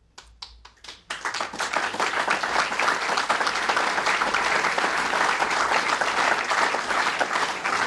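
Audience applauding. A few scattered claps come first, then the clapping breaks out in full about a second in and stays steady.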